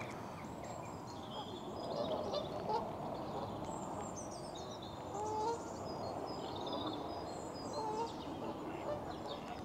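Open-air lakeside ambience: a steady hiss of wind and background noise, with a few faint honking calls from waterfowl, the clearest about halfway through and again near the end, and small birds chirping high above.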